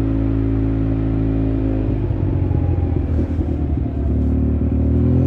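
Motorcycle engine running at a steady speed, its even note giving way to a rougher, noisier sound about two seconds in; a slightly rising engine note comes back near the end.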